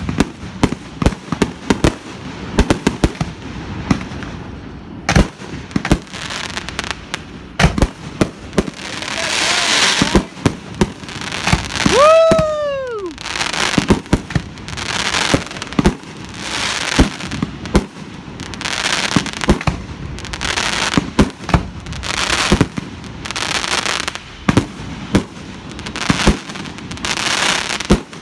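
Aerial fireworks going off overhead: many sharp bangs with repeated bursts of crackling hiss, and one whistling firework about twelve seconds in whose pitch rises briefly and then falls away.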